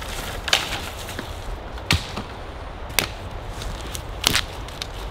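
Dry side branches snapping off a fallen pine trunk by hand: four sharp cracks about a second apart. Wind rumbles on the microphone underneath.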